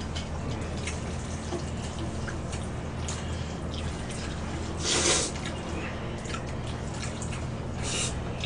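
Buckwheat noodles being slurped, with wet eating sounds and light clicks of chopsticks against stainless-steel bowls. The loudest slurp comes about five seconds in and another comes near the end.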